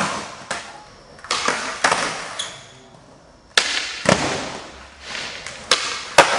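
Skateboard tricks on smooth concrete flat ground: a series of sharp tail pops and board-landing cracks, some in quick pop-then-land pairs, with the wheels rolling in between. Each snap echoes briefly in the large indoor space.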